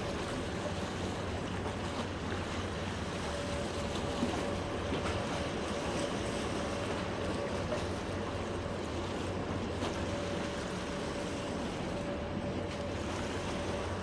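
A boat's motor running steadily as a low hum with a thin constant whine, over the rush of water churning beside the hull and some wind on the microphone.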